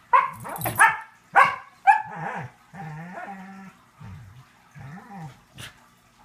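A dog giving a quick run of about six short, sharp yips and barks, then low, drawn-out, wavering grumbling growls.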